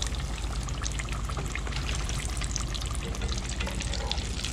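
Battered speckled trout fillets frying in hot oil in a cast-iron pot, a steady crackling sizzle, over a low steady hum.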